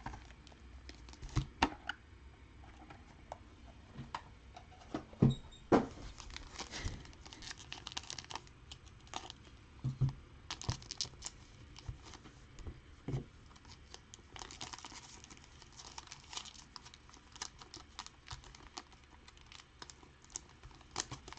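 Hands opening a sealed trading-card box and pack: wrapping crinkling and tearing, with scattered light clicks and a few sharper knocks as cardboard and cards are handled.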